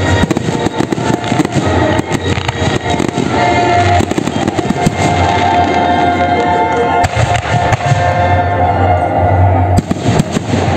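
Fireworks display: aerial shells bursting and crackling, many in quick succession at first, fewer in the middle, then a cluster of bangs near the end, over music playing throughout.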